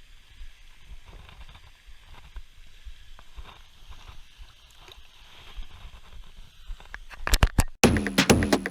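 Faint low rumble with scattered light ticks and rustling, then a few sharp clicks about seven seconds in, followed by electronic dance music with a driving beat that starts abruptly near the end.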